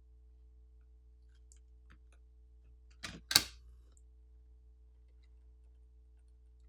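Two sharp clicks of a tool against the tablet about three seconds in, the second much louder with a brief ring, as the glued-down battery is being pried out, over a faint low hum.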